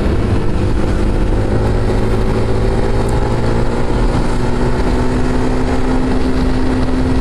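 Motorcycle engine running steadily while riding, its pitch creeping slightly upward, with wind rumble on the microphone.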